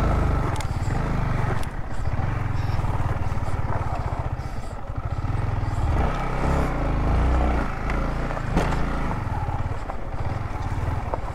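Motorcycle engine running as the bike is ridden, its note swelling and easing, with a few sharp knocks and rattles along the way.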